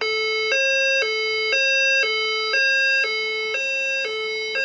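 Fire alarm voice-evacuation speakers sounding their two-note hi-lo signal tone, switching pitch about every half second. The tone signals a reported event in the building, ahead of any evacuation instructions.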